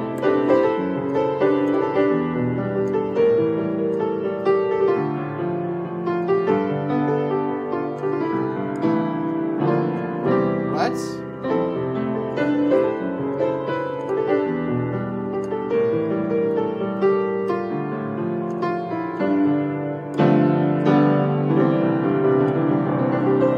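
Piano playing a chord progression in the key of C with full two-handed chords, changing about every second.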